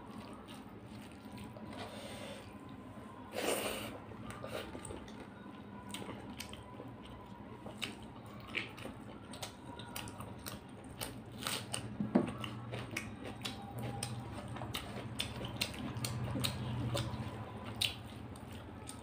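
Close-up eating sounds of rice and chicken curry eaten by hand: fingers squishing and mixing the wet rice, chewing and many small wet mouth clicks and smacks. A louder wet sound about three and a half seconds in, over a steady low hum.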